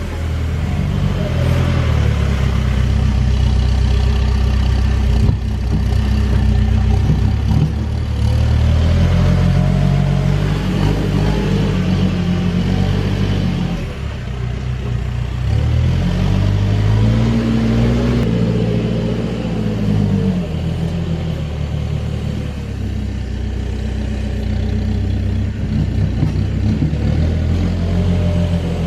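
Case 580 Super N backhoe loader's diesel engine running under load, its pitch rising and falling as it is revved up for the hydraulics, with two longer swells of revving, one about a third of the way through and one past the middle.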